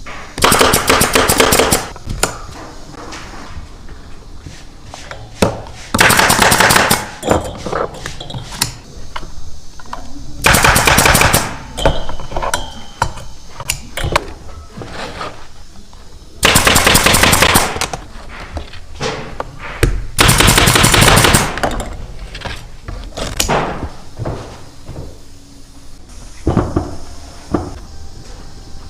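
Pneumatic staple gun firing in rapid bursts, each burst about a second of quick repeated shots, about six times, with quieter workshop noise between.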